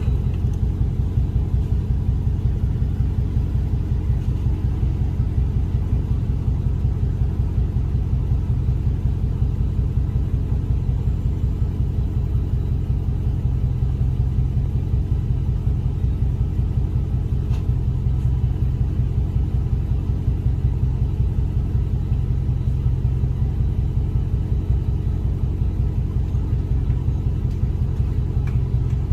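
Car engine idling with a steady low rumble and a fast, even pulse.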